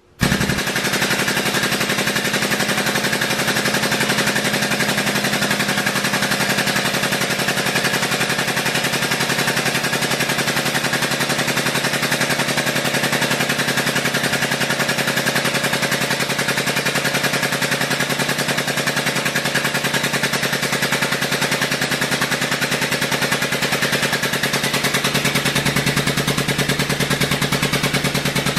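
Air-over-hydraulic pump driving a tube bender's hydraulic ram, running in a loud, rapid, even chatter as it slowly pushes the ram out on only about 40 PSI of air. It starts about half a second in.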